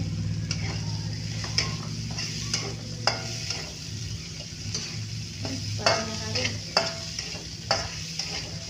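Sliced green chilies sizzling in hot oil in a metal wok while a metal spatula stirs them, scraping the pan and clacking sharply against it a few times, loudest about six and seven seconds in. A steady low hum runs underneath.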